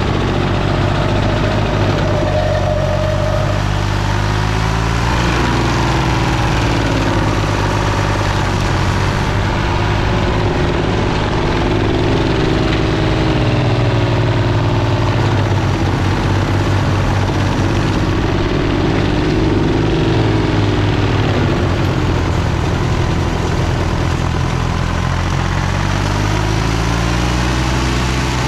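Green Climber LV600 remote-controlled tracked mower running hard, its Kohler engine and forestry mulching head working into brush and a tree stump. The engine note sags and recovers several times as the load comes and goes.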